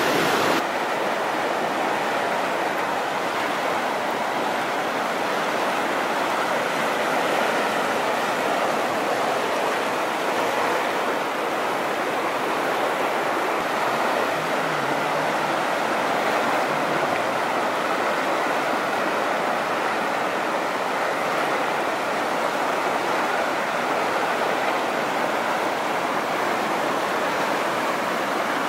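Whitewater rapids on a large river: a steady, dense rush of churning water that does not let up.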